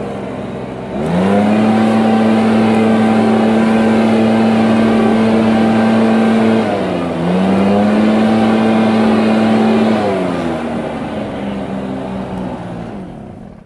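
Gas leaf blower at full throttle, a steady high engine whine. About seven seconds in the throttle is let off briefly, the pitch dipping, then opened again; from about ten seconds in it is throttled down and the sound fades toward idle.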